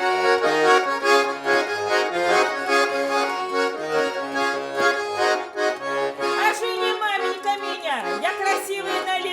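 Russian garmon (button accordion) playing a lively chastushka accompaniment: sustained chords over a steady pulse of bass notes, an instrumental break between sung verses.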